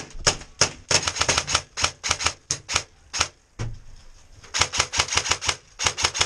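Airsoft electric rifles firing rapid strings of sharp snapping shots, about six a second, in two runs with a lull between.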